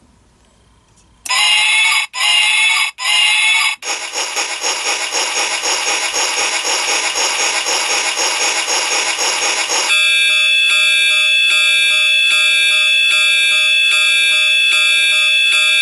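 Loud electronic alarm tones: three short blasts starting about a second in, then a continuous sounding tone, changing about ten seconds in to a steady pattern of several held tones.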